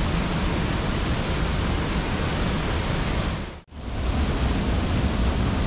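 Waterfall pouring a few metres away: a steady, loud rush of water noise that breaks off for an instant about three and a half seconds in.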